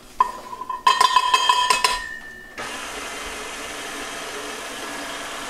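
Metallic clinking and ringing for about two seconds, then a KitchenAid stand mixer's motor starts and runs steadily from about two and a half seconds in.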